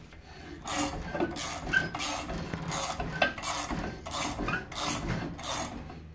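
Socket ratchet wrench clicking as it turns the adjuster bolt of a small benchtop slip roller, in quick back-and-forth strokes about two a second.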